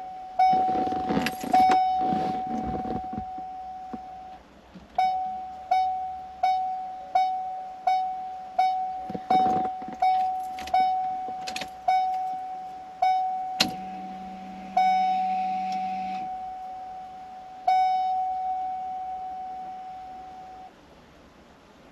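A 1996 Corvette's tone generator sounding its warning chime: a single ringing tone repeated about twice a second, then a few slower chimes that ring out longer before stopping. There is some rattling of keys and handling alongside. The freshly resoldered generator is working again.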